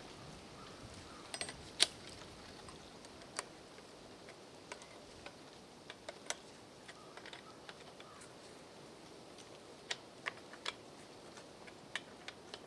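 Scattered light clicks and taps at irregular intervals, with no engine running, from hands and a tool working on a Husqvarna 390XP chainsaw while the chain is tightened. The sharpest click comes about two seconds in, and a few more come close together near the end.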